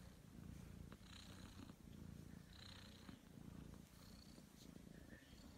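Domestic cat purring softly while being stroked under the chin, a sign of contentment; the low rumble swells and eases with each breath in a steady rhythm.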